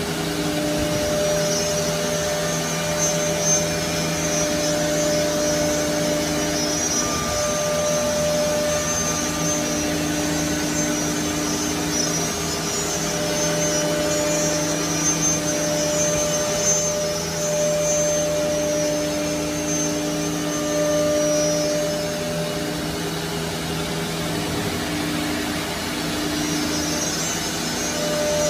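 HOLZTEK R1325-R4 four-spindle CNC nesting router running with its dust extraction while machining a board: a steady machine whine and rush of air, with several pitched tones that fade in and out as the spindles work.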